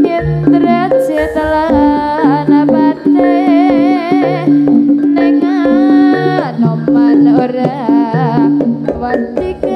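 Live amplified Javanese jaranan music: gamelan with hand drums under a wavering, ornamented melody line, playing without a break.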